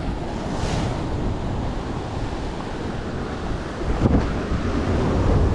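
Ocean surf washing and breaking against a rocky cliff shore, mixed with wind buffeting the microphone; the surge grows louder about four seconds in.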